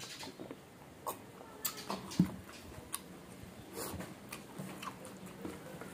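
Mouth sounds of eating: chewing and wet lip smacks, with scattered short clicks and one louder knock a little after two seconds in.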